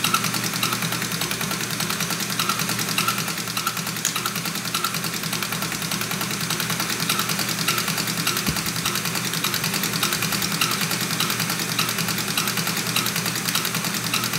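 Six-cylinder Mercedes inline diesel injection pump being driven on a test bench during calibration: steady mechanical running with a fast, regular ticking.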